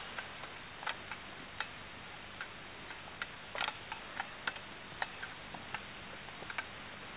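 Metal thurible swung on its chains, the chains clinking against the censer in a string of irregular sharp clicks, with a quick cluster about halfway through: the incensing of the Book of the Gospels before the Gospel is read.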